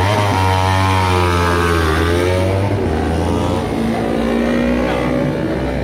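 Several motorcycle engines running, one revving, its pitch dipping and rising, over a steady low engine hum that fades out a little past halfway.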